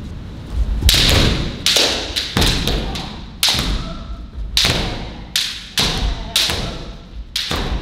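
Kendo sparring: bamboo shinai strikes and bare feet stamping on the wooden dojo floor, about ten sharp hits echoing in the hall, with a player's shout partway through.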